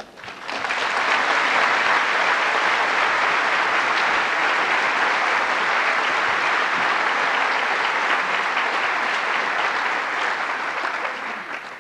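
Audience applauding, swelling about half a second in, holding steady, and fading out near the end.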